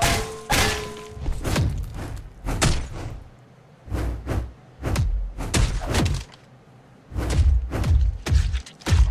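A run of heavy thuds and thumps, coming in clusters with short pauses between them, with some music at the start.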